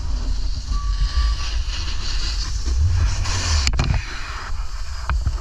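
Wind rumbling on an action camera's microphone while riding down a ski slope, with the hiss of snowboard edges scraping over snow. A sharp knock about three and a half seconds in.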